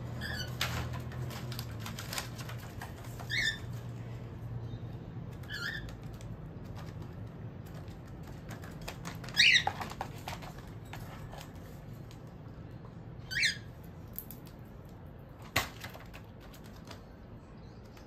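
Female cockatiels in a cage giving about five short chirping calls a few seconds apart, the loudest about nine and a half seconds in. Light clicks and rustles come from the cage between the calls, with a sharp click near the end.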